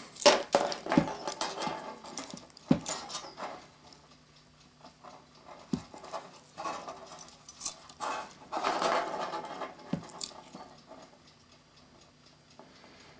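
Irregular light clicks, scrapes and rustling as a coiled steel clock mainspring is shifted and lined up in the jaws of a hand-held revolving hole punch, with busier stretches near the start, around three seconds in and around nine seconds in.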